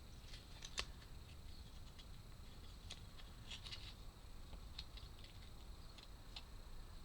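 Faint scattered clicks and taps of small laser-cut wooden puzzle parts and pegs being handled and fitted together, a few sharp ticks spread over several seconds.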